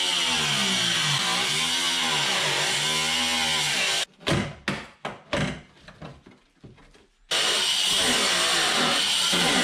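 Angle grinder with a cutting disc slicing through the sheet steel of a Ford Mondeo's rear wheel arch, its motor speed dipping and recovering as the disc bites. It stops suddenly about four seconds in, a few knocks follow, and it starts cutting again about three seconds later.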